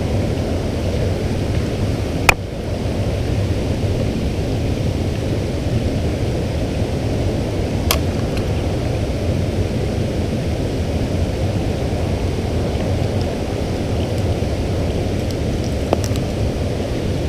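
Steady rushing of a shallow creek's flowing water, with two sharp clicks, one about two seconds in and a fainter one near eight seconds.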